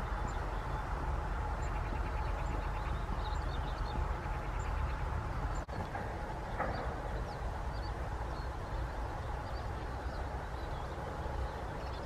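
Small birds chirping and calling, with a short rapid trill a few seconds in, over a steady low rumble.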